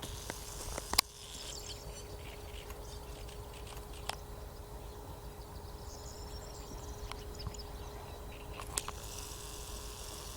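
Outdoor ambience with birds calling faintly and a few sharp clicks, the loudest about a second in.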